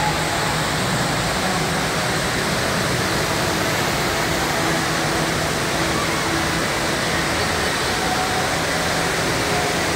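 Steady, even rush of an indoor waterfall pouring down a rock wall.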